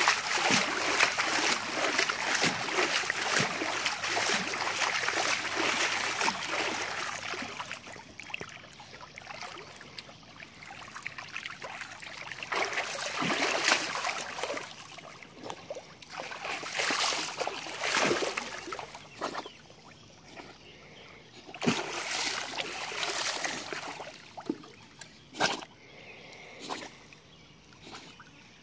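Pool water splashing and sloshing as a pug paddles through it, busiest in the first seven seconds or so, then coming and going in shorter spells.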